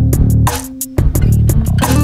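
Background music with guitar and bass guitar over a steady beat, dropping back briefly a little before halfway and then coming in again.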